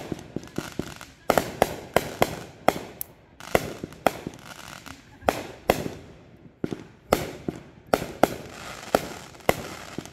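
Fireworks display: aerial shells bursting in sharp bangs, in quick, irregular succession, often two or three a second.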